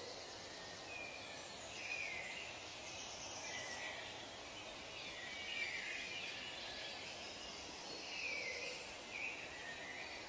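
Forest ambience: many birds calling in short chirps and falling whistles, overlapping one another, over a steady background hiss.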